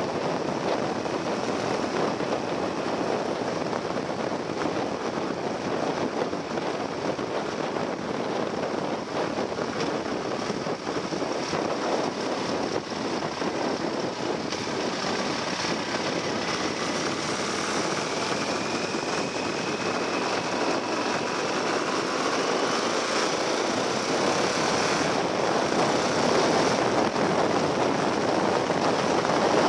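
Steady wind rush and engine drone from a Yamaha XT1200Z Super Ténéré's parallel-twin motorcycle at road speed, with wind buffeting the bike-mounted microphone.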